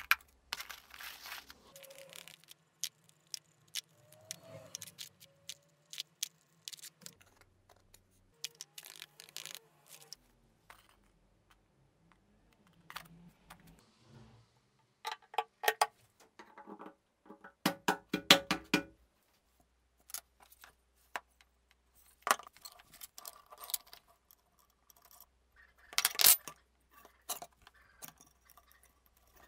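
Small metal and plastic parts being handled on a workbench: scattered clicks, taps and light scrapes, with a run of fast rattling clicks a little past the middle.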